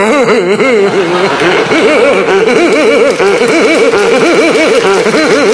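A woman laughing loudly and without pause, her voice rising and falling in a quick, even run of high-pitched ha-ha pulses.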